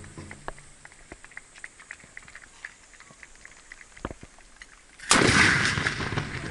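Faint scattered clicks and knocks, then about five seconds in the loud report of Japanese matchlock (hinawajū) gunfire, which goes on and dies away over a second or so.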